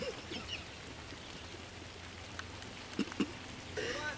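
Light rain hissing steadily, with a sharp thump right at the start, two short knocks about three seconds in and a brief voice near the end.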